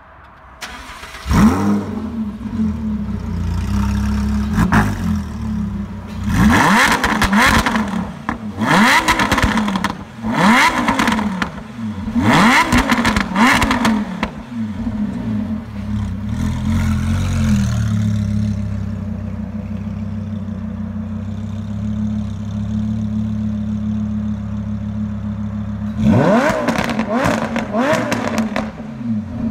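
Lamborghini Huracán V10 with a full titanium Akrapovič exhaust starting with a loud flare about a second in, then revved in a string of throttle blips. It settles to a steady idle for several seconds, then blips again near the end.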